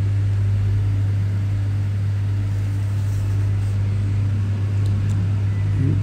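A steady low hum with an even hiss, and a couple of faint ticks about five seconds in.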